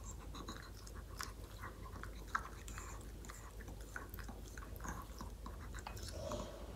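Maltese dog licking its emptied food bowl clean: a faint string of small, irregular licking clicks and smacks against the bowl.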